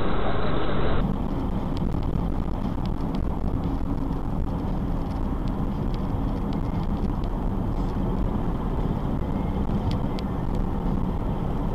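Steady engine and tyre noise of a car driving, heard from inside the cabin through a dashcam. About a second in, the sound changes to it from a louder, duller street sound.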